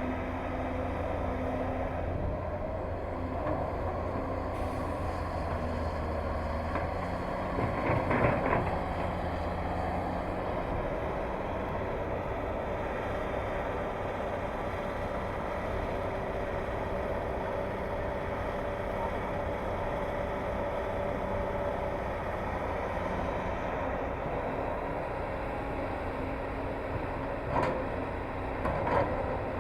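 Excavator's diesel engine running steadily, with a few louder clunks about eight seconds in and again near the end.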